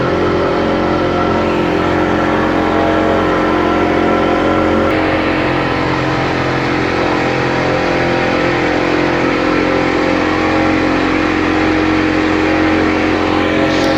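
Speedboat engine running steadily under way, its even drone mixed with a constant rushing noise.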